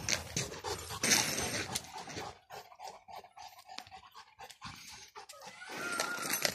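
A large dog panting close by in rough, breathy bursts, loudest in the first two seconds.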